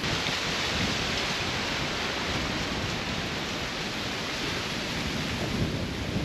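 Wind: a steady rushing noise with irregular low rumbling buffets on the microphone, starting abruptly.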